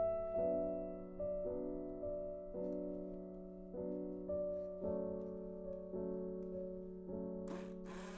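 Soft background piano music, with chords struck about once a second and left to ring and fade. Near the end a brief noisy rustle or scrape comes in over it.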